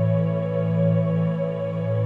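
Ambient background music of slow, held tones with no clear beat.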